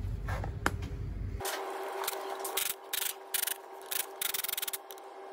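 Ratchet wrench clicking in short runs as the Allen bolts of a clutch pressure plate are slackened off, with a fast run of clicks near the end. A low rumble cuts off suddenly about a second and a half in.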